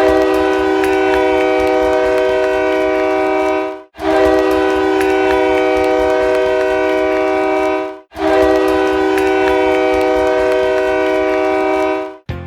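Hockey arena goal horn sounding three long blasts of about four seconds each, a steady multi-note horn chord with brief breaks between blasts, signalling a goal scored.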